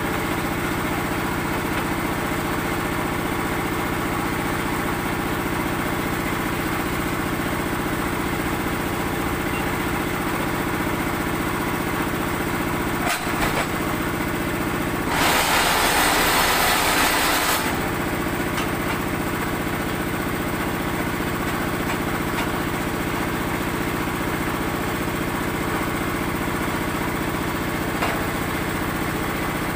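Small engine driving concrete-block (batako) making machinery, running steadily. About halfway through, a louder harsh noise rises over it for two to three seconds.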